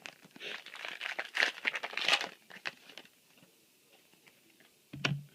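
Foil trading-card booster pack wrapper crinkling and tearing for about two and a half seconds, then a few faint clicks.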